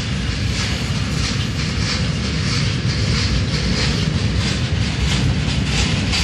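Norfolk Southern double-stack intermodal freight cars rolling past close by: a steady, loud rumble with repeated clicking from the wheels on the rails.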